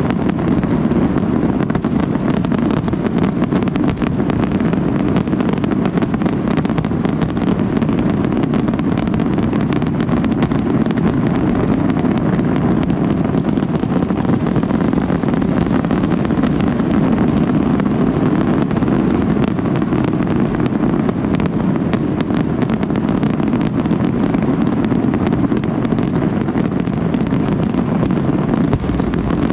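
New Year's Eve fireworks display in full barrage: a steady, dense rumble of overlapping bursts with many sharp cracks and pops throughout.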